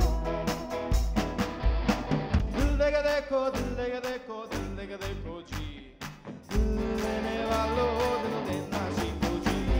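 Rock band playing: electric guitars, bass and drums with a singing voice. About four seconds in the bass and beat drop away for a couple of seconds, then the full band comes back in.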